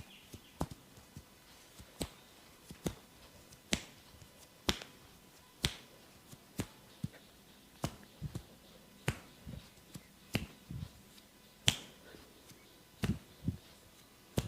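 Percussive back massage: a run of sharp, crisp slaps or snaps about once a second, some in quick pairs. Duller thumps join them in the second half, and the loudest strike comes near the end.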